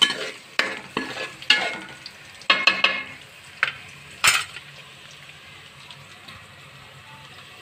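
Garlic, cumin and green chillies sizzling in hot oil in a steel kadhai, stirred with a metal spoon that scrapes and clinks against the pan. The stirring stops about four and a half seconds in, leaving a steady sizzle.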